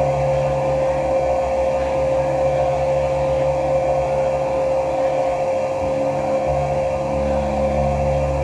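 Live drone music from guitar and electronics: a steady held high tone over a low rumbling drone. The low drone thins out about five or six seconds in and swells back a second later.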